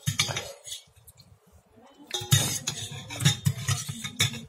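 Metal fork and spoon clinking and scraping against a bowl as noodles are stirred, a short burst at the start and a longer run of clatter from about two seconds in.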